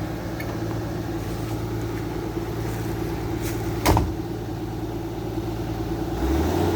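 A heavy vehicle engine idling steadily, with a single sharp knock about four seconds in and a change in the engine note near the end.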